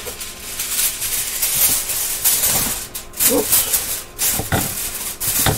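Aluminium foil crinkling and rustling as a sheet is pulled off the roll and handled, with sharp crackles.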